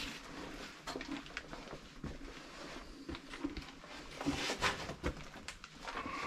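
Irregular footsteps and scuffs on a gritty floor with camera handling noise, in a narrow brick tunnel; a few louder scrapes come around four to five seconds in.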